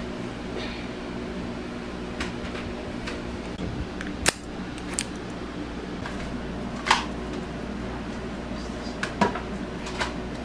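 Steady low hum of room noise with a scattering of short, sharp clicks and knocks. The loudest come a little over four seconds in, around seven seconds and just after nine seconds.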